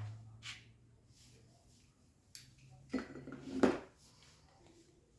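Handling noises from arranging a bouquet: a few light knocks and rustles, the loudest two about three and three and a half seconds in.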